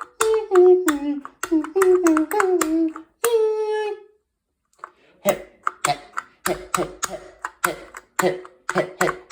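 A child's voice mimicking a smoke alarm with a string of short sung beeps whose pitch slides downward. After a brief pause come about a dozen short, sharp hand claps.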